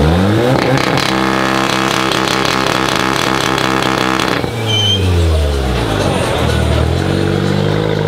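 Modified Volkswagen Golf engine revved hard: the revs climb quickly and hold steady high for about three and a half seconds, then the throttle is let off and the revs fall away with a brief whistle. The engine is revved up again about two seconds later and eases back near the end.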